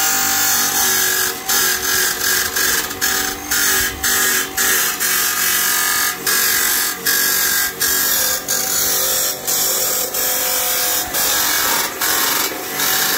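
Abrasive chop saw with a fibre-reinforced cut-off wheel grinding through a steel channel, the motor whining steadily under load. The cutting sound dips briefly every half second or so as the blade is eased on and off the metal.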